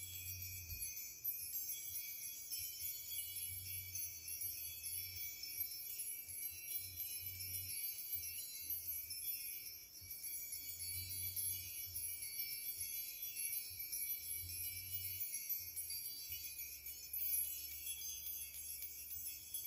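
Wind chimes tinkling steadily, a high shimmering wash of many thin ringing tones, with a low hum that comes and goes underneath.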